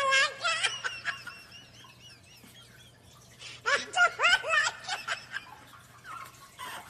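People laughing in bursts, loudest at the start and again about four seconds in, with a quieter stretch between.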